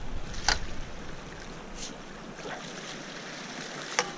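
Steady rush of high river water with some wind, broken by a few sharp clicks: the loudest about half a second in and two close together near the end.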